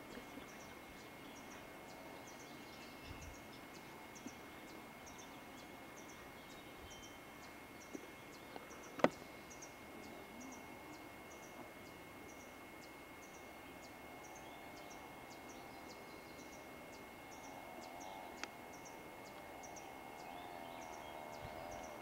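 Faint outdoor ambience with a steady hiss and a thin high tone. A short high chirp repeats about once or twice a second throughout. One sharp click comes about nine seconds in, and faint wavering calls appear in the second half.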